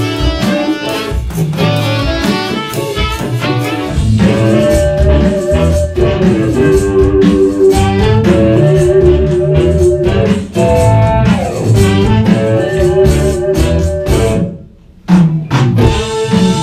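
A live rock band of electric guitar, electric bass and drum kit playing a blues-rock tune, the electric guitar carrying held, wavering notes over the rhythm. Near the end the whole band stops dead for about half a second, then comes back in together.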